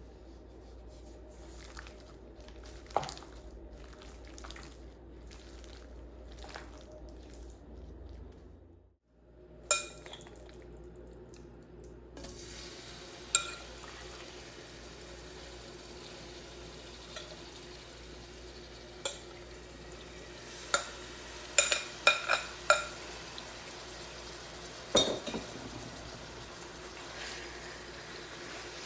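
Metal utensil clinking and scraping against a cooking pot while stirring, a scatter of sharp clinks with a quick cluster about three quarters of the way through, over a low steady background hiss.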